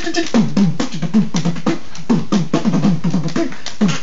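Beatboxing: mouth-made drum clicks about five a second over a hummed bass line that swoops up and down in pitch.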